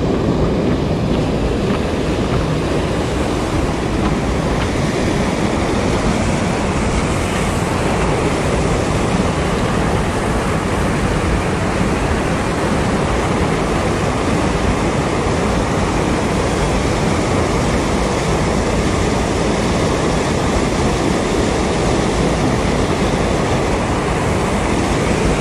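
River rapids: fast white water rushing loudly and steadily.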